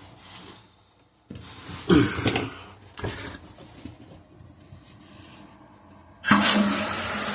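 Water suddenly starts rushing into a toilet tank through the fill valve, a loud steady hiss beginning about six seconds in, as the supply valve is opened. Before it come faint handling sounds and a brief cough-like sound.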